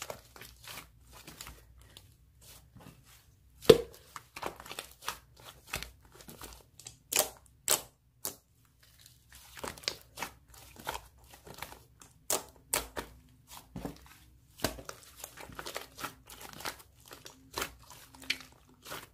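Slime being squeezed and worked by hand, making irregular crackling clicks and pops; the loudest pop comes about four seconds in.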